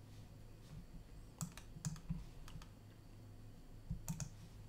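Faint clicks of a computer keyboard and mouse, a few quick clicks in small clusters about a second and a half in, around two and a half seconds and near the end, over a faint steady low hum.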